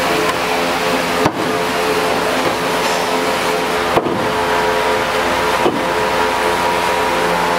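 Steady mechanical hum of a repair shop, with several held tones, broken abruptly three times.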